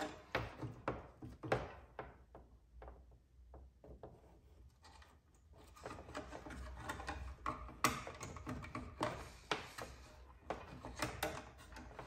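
Scattered rustles, scrapes and small plastic clicks as white sheathed cable is pushed into a blue plastic electrical box. The sounds are busier in the second half, with one sharp click about eight seconds in.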